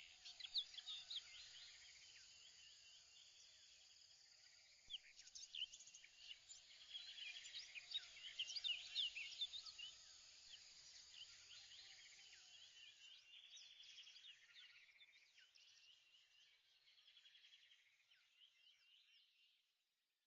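Faint chorus of birds chirping, many quick overlapping calls that thin out and fade away near the end.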